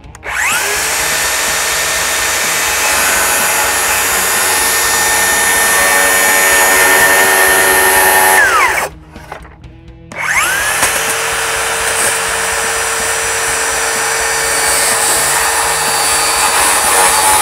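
Cordless circular saw cutting through a white PVC garage door jamb leg, trimming its bottom end to the marked length. Two long cuts, each with the motor winding up at the start and winding down at the end, with a short pause about nine seconds in.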